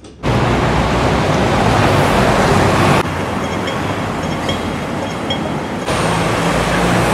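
City street noise: a steady wash of traffic, in short shots cut together, with faint high beeps repeating in the middle shot.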